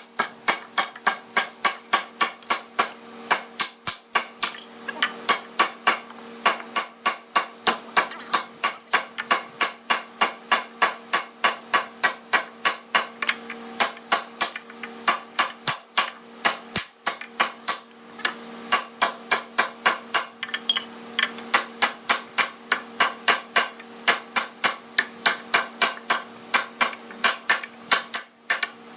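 Rapid, steady hammering on wood, about three blows a second without pause, over a steady low hum.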